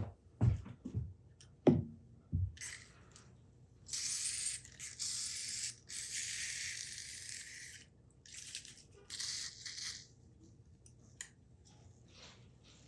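WD-40 aerosol can spraying through its straw nozzle into a rust-soaked drill chuck, in several hissing bursts, the two longest about two seconds each. A few knocks come in the first couple of seconds, before the spraying.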